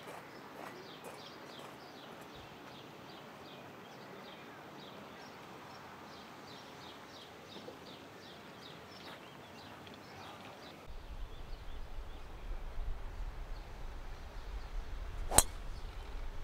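A driver strikes a golf ball off the tee: one sharp crack near the end, over a low rumble of wind on the microphone. Before that, a bird chirps over and over in short, quick notes.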